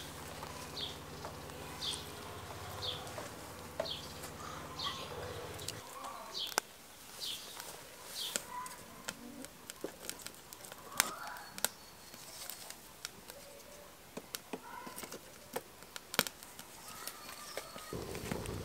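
A bird repeats a short high chirp about once a second for the first six seconds. After that come scattered sharp cracks and snaps of dry kindling and sticks being handled and catching in a small wood fire, with a louder rushing noise starting near the end.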